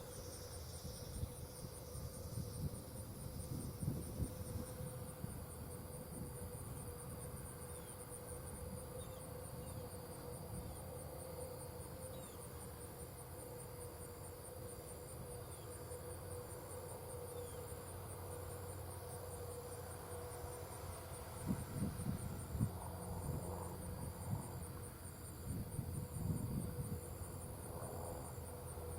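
Insects trilling steadily in a high, rapidly pulsing drone, with a second insect chirping in slower even pulses from about halfway through. Under them runs a low steady rumble and hum of distant farm machinery, with some louder low rushes near the end.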